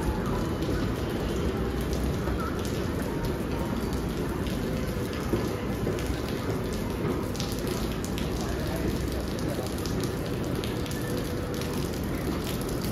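Light rain pattering as many small ticks over a steady low background din.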